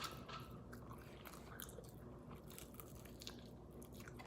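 Faint chewing of fast food, with scattered small clicks and ticks from the mouth and food.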